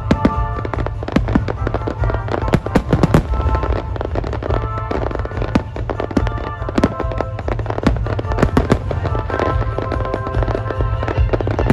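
Aerial fireworks shells bursting in quick succession, many sharp cracks and bangs throughout, with music playing underneath.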